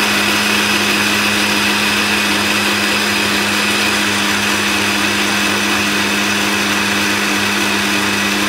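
Countertop blender running steadily, grinding soaked soybeans with a little water into a smooth milky slurry. It makes a steady motor hum over the churning liquid.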